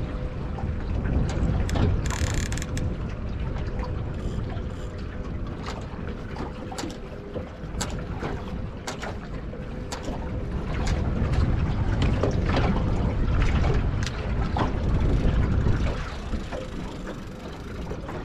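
Wind buffeting the microphone over water lapping at a small boat, with scattered sharp clicks and knocks of handling on board.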